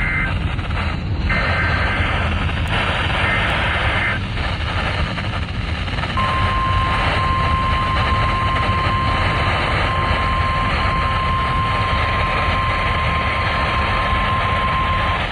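Emergency alert received over the radio through heavy static: short bursts of warbling SAME header data tones in the first few seconds, then the steady 1050 Hz NOAA Weather Radio warning alarm tone from about six seconds in, dropping out for a moment a few times.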